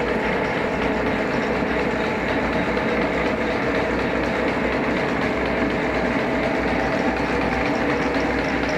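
WMW GFL 5000 thread milling machine running under power: a steady mechanical drone with a few constant tones from its drive.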